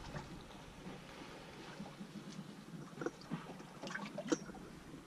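Water lapping gently against the hull of a drifting boat on a calm sea, with a few small knocks and clicks about three to four and a half seconds in.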